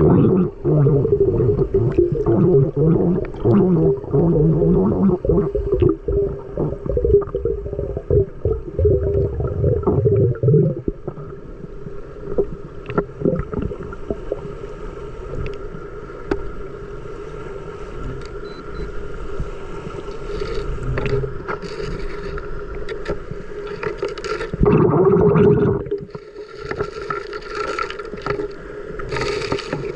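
Muffled underwater sound picked up by a camera sealed in a waterproof case during a dive: gurgling water and bubbles, with clicks and scrapes against the case over a steady low hum. It is loud and busy for the first ten seconds or so, quieter after, with a brief loud rush near the end.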